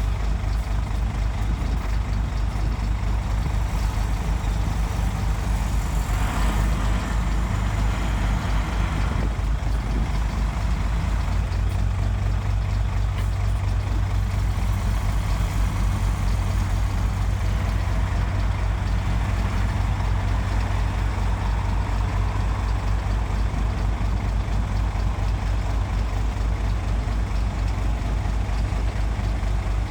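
Heavy diesel engine of earthmoving machinery running steadily under work, with a low, even pulse. A brief rush of hissing noise comes about six seconds in.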